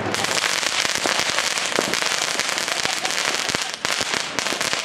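Hand-held firework spraying sparks, a dense steady hiss of crackling pops that dips briefly near the end.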